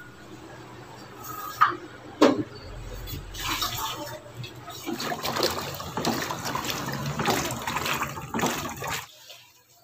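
Two sharp clicks, then water sloshing and splashing as a spin mop is worked in its bucket of water, stopping near the end.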